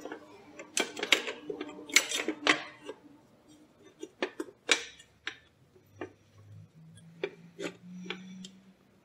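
Irregular sharp metallic clicks and knocks from handling the cast aluminium belt housing of a Bridgeport milling head as it is shifted and seated on the head.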